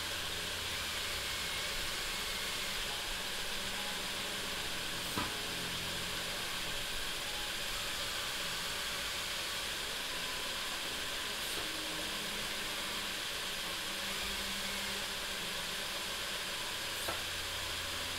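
Steady hiss of a small air compressor running. Over it, the LEGO gantry crane's motors give a faint hum that comes and goes, with two light clicks, about five seconds in and near the end.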